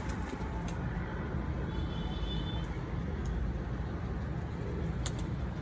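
Steady low outdoor background rumble, with a few faint clicks about five seconds in.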